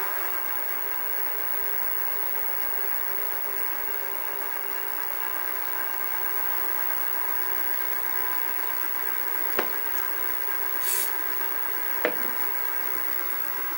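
Sieg SX2P mini mill spindle motor running steadily at about 500 rpm with a steady whine, just settled after being turned down. Near the end come two light knocks and a short hiss.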